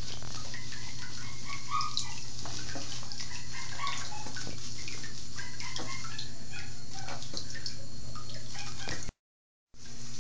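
Bathwater dripping and splashing as soapy hands wash a young Border Collie puppy in a tub, with the puppy's small grunts among the drips. The sound cuts out briefly near the end.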